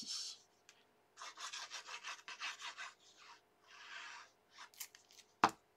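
Tip of a liquid glue bottle scraping over cardstock in quick zigzag strokes, about six a second, then a short rub. A single sharp knock near the end is the loudest sound.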